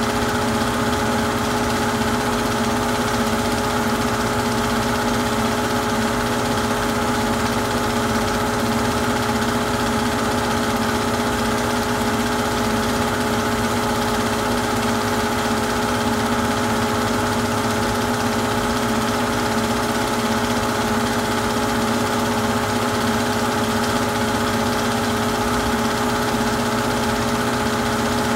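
Steady, unchanging motor hum and whir of a Super 8 film projector running.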